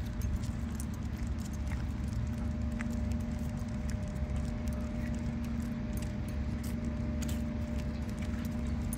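Leash clips and harness hardware jingling in scattered light clicks as two leashed dogs walk, over a steady low hum.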